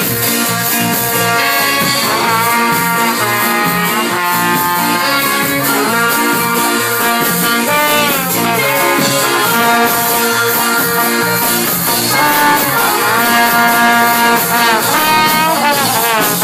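Live band with a brass horn section playing an up-tempo instrumental passage over drums. Sustained horn lines end in falling slides about halfway through and again near the end.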